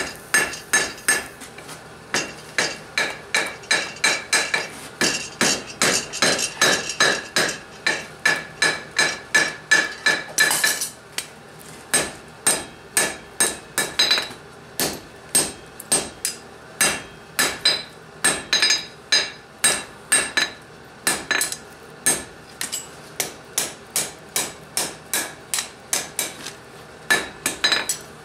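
Hand hammer striking a welding-heat steel bar on an anvil, forge welding two scarfed bars into a square corner. The blows come steadily, about two to three a second, each with a metallic ring, with a short pause about eleven seconds in.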